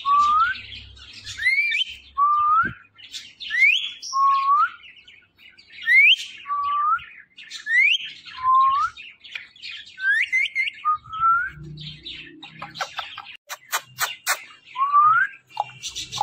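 Indian ringneck parrot whistling a repeated call: short rising whistles about once a second, alternating between a higher and a lower one. A quick run of clicks comes near the end.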